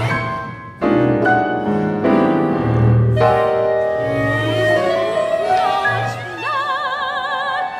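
Chamber ensemble of piano and strings playing contemporary classical music, with sharp piano chords among sustained string notes. About six and a half seconds in, a soprano comes in on one high held note with a wide vibrato.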